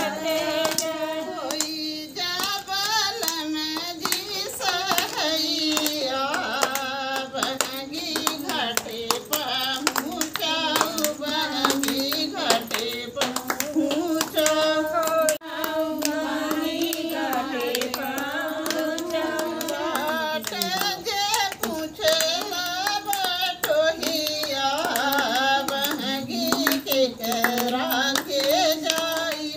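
Women singing a Chhath devotional folk song in long, held, wavering notes, with irregular hand claps throughout.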